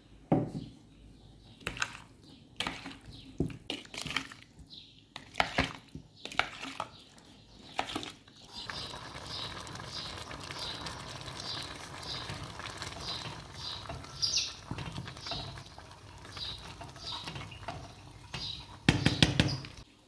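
A metal spoon clinks and knocks in a plastic mixing bowl as chicken is stirred with oil and spices. After about eight seconds this gives way to the steady bubbling hiss of a pot of rice boiling hard, with a brief burst of knocks near the end.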